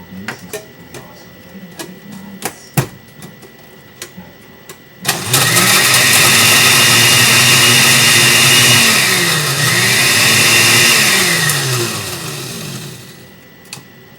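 A few clicks and knocks, then a blender motor starts suddenly and runs loud for about eight seconds, grinding dry salt crackers into crumbs. Its pitch sags once midway and comes back up before it winds down.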